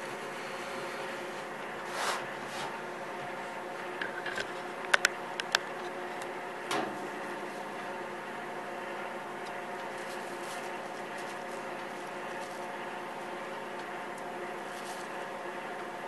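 Steady hum of a running microwave oven. A few sharp clicks and knocks of the clay cooking pot and its lid being handled come between about two and seven seconds in, the loudest about five seconds in.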